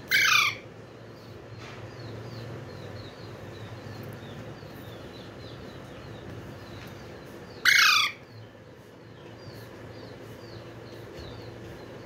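Young Alexandrine parakeet giving two loud, harsh screeches, one at the start and one about eight seconds in, each under half a second and falling in pitch. Faint high chirps repeat in the background.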